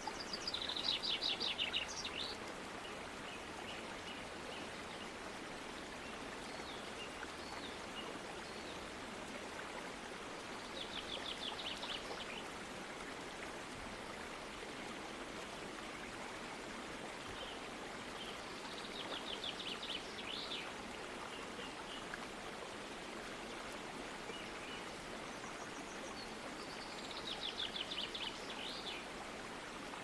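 Steady rush of water from a waterfall and its stream. A bird sings a quick run of rapid high notes four times, each phrase about a second or two long and the loudest thing heard.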